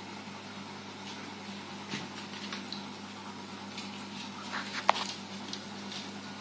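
Steady low hum and hiss of running reef aquarium equipment, with a few faint ticks and one sharp click about five seconds in.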